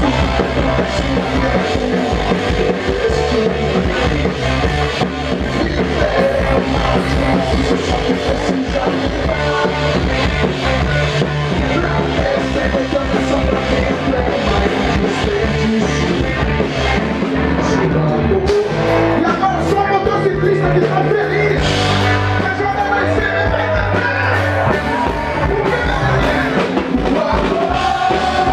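Live rock band playing a song, with electric guitar and drum kit and a singer's voice at times.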